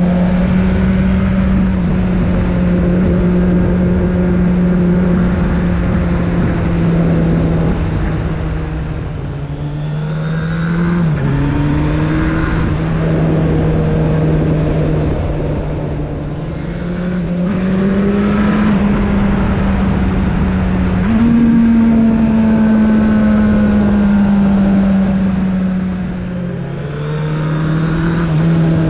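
Suzuki Bandit 1200's air/oil-cooled inline-four engine running under way, with wind rushing past. Its steady note dips and rises in pitch a few times as the throttle changes, jumping up sharply twice in the second half.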